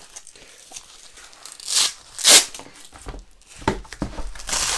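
Hook-and-loop (Velcro) strips on nylon cummerbunds being ripped apart by hand: a few short rips, the loudest about two seconds in, with another longer rip near the end.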